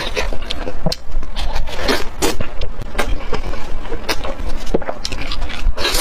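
Close-miked chewing and lip-smacking of grilled meat from skewers: an irregular run of wet clicks and crackles, with a steady low hum underneath.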